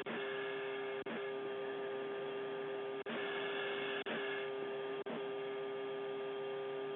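Steady hum and hiss of an aircraft cockpit intercom channel, with a strong steady tone and brief dropouts about once a second.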